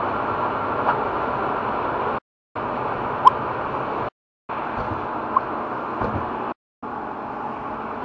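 Turbocharged car engine running with a steady rushing hiss, heard as four short clips cut abruptly one into the next, with a short sharp chirp about three seconds in.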